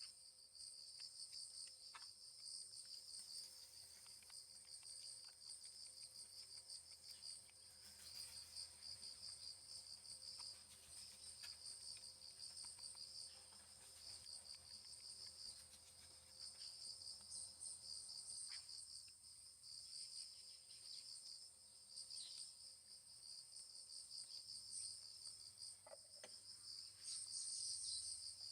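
Crickets chirping in a steady, high, pulsing chorus, with a few faint clicks and taps.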